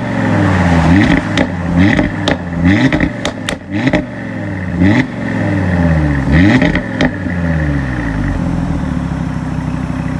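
Audi RS3 8V's turbocharged 2.5-litre inline five-cylinder engine through its sport exhaust, revved in a quick series of blips, each rising sharply and falling away, with a few sharp cracks on the overrun. About eight seconds in it settles to a steady idle.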